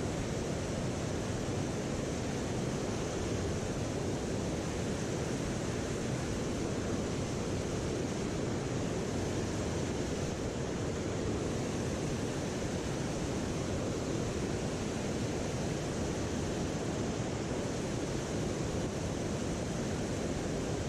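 A mountain stream's water rushing steadily, an even noise that does not change.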